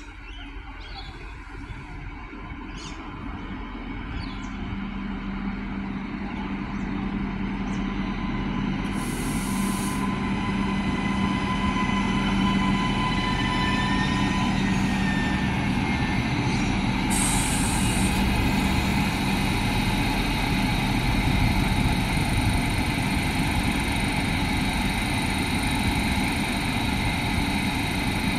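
Adelaide 3000/3100-class diesel railcar drawing into the platform. Its engine grows louder over the first ten seconds, then keeps running steadily as the railcar stands. Two short bursts of air hiss come about nine and seventeen seconds in.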